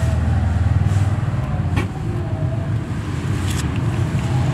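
Steady low rumble of a running engine, with a sharp click about two seconds in.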